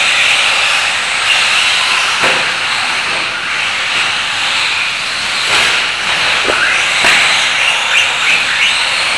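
Radio-controlled trucks running on a dirt track: a steady hiss with a few brief rising motor whines in the second half.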